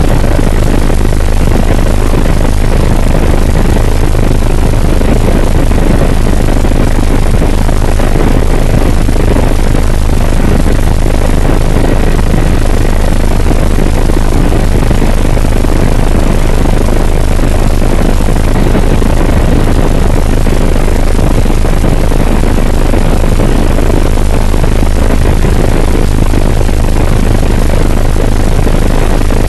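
Helicopter in flight: loud, steady rotor and engine noise with a constant deep hum and no change in pitch.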